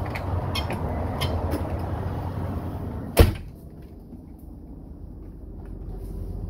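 A door shutting with one sharp thump about three seconds in. A steady rumbling background with a few light clicks before it drops away after the thump.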